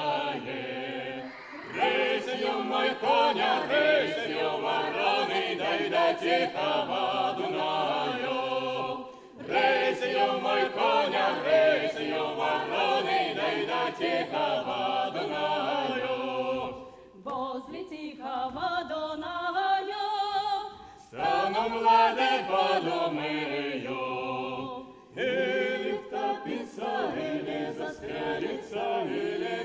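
Mixed choir of men's and women's voices singing a Cossack folk song unaccompanied, in long phrases separated by brief pauses for breath.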